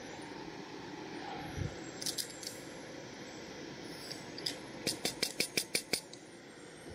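Steady hiss of a Jetboil gas burner with a pot of water boiling on it. A few light clinks come a couple of seconds in, then a quick run of about seven sharp clicks near the end.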